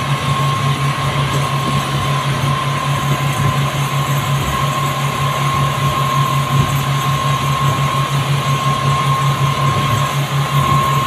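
Twin outboard motors of a speedboat running steadily at speed, heard from inside the cabin: a constant low drone with a steady high whine over a broad rush of water and wind.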